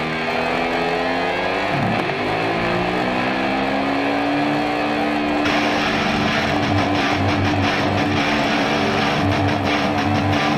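Small two-stroke weed eater engine revving up to a high, steady whine as it drives the bike's rear tyre through a friction roller. Rock music with drums comes in over it about halfway through.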